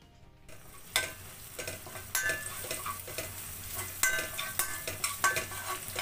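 Sliced onions, garlic, ginger and curry leaves sizzling in hot oil in a stainless-steel kadai, being sautéed until they brown, while a metal spoon stirs them, clinking and scraping against the pan. The sizzle comes in about half a second in, with sharp spoon clicks about once a second.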